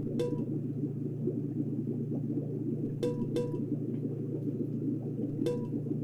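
A low, steady electronic drone with short sonar-like pings over it: one near the start, two close together about three seconds in, and one near the end.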